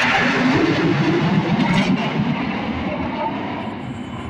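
Fighter jet flying past overhead, its engine noise a broad rush that fades steadily as the aircraft moves away.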